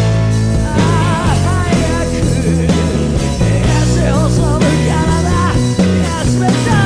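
Japanese rock song by a band: a male singer sings a line in Japanese over steady bass, guitar and drums, from a 1990 cassette recording.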